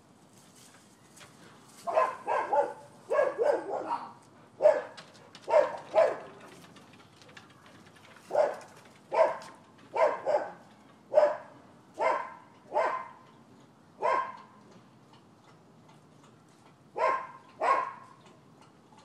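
Dogs left outside barking: about twenty loud barks in irregular runs, starting about two seconds in, with a pause of a couple of seconds before a last pair near the end.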